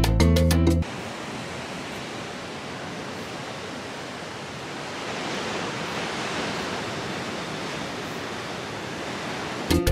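Ocean surf breaking and washing up a beach: a steady rush of water that swells a little around the middle.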